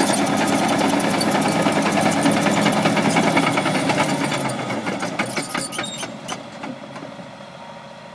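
Caterpillar D6R XW crawler dozer working: its diesel engine runs under load while the steel tracks keep up a rapid clatter. The sound grows quieter through the second half.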